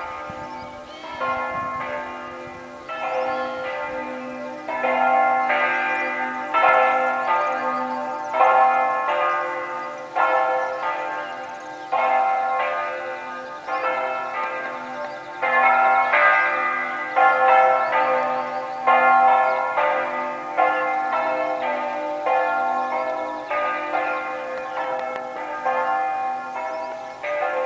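Church bells ringing a peal, one strike after another about every second, each note ringing on and overlapping the next.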